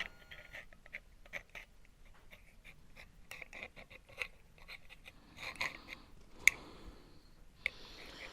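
Light clicks and scraping from small parts being handled, as oiled quad-ring seals are worked into air locker parts, with one sharper click about six and a half seconds in.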